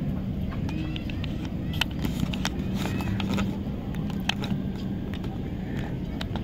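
Outdoor ambience: a steady low hum of a motor, with scattered sharp clicks and a few faint high chirps.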